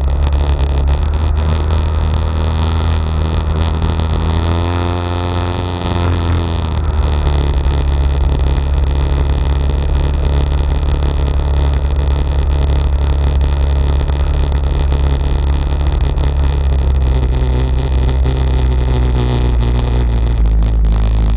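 ATV engine running steadily as the quad rolls slowly over a dirt lot, with a deep constant rumble. Its pitch shifts briefly about five seconds in, and again more faintly near the end.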